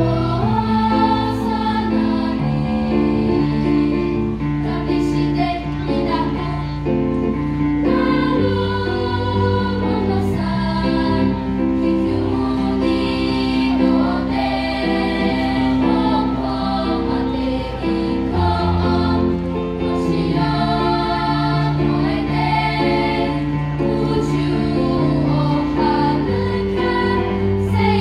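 Children's choir singing a song in several-part harmony with held, sustained notes over a low accompaniment.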